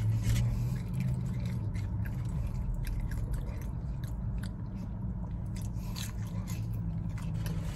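Close-up chewing and biting of a burger, with wet mouth clicks and smacks scattered throughout, over a steady low hum.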